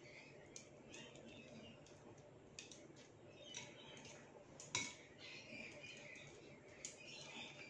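Faint, scattered clicks and taps of metal kitchen tongs against a glass bowl and a ceramic plate as gyoza dumplings are lifted and set down; the sharpest click comes about five seconds in.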